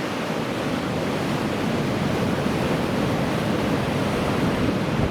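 Heavy storm surf crashing and rushing in a steady roar, with strong wind blowing across the microphone.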